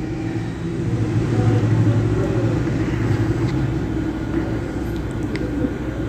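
Steady low mechanical hum, with a few faint light ticks.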